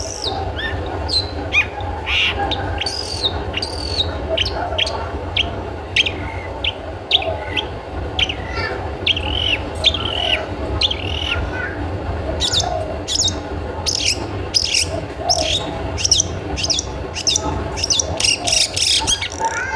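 Long-tailed shrike (cendet) giving its 'toet toet' call: a rapid run of short, sharp, high calls, coming closer together near the end, over a steady low hum.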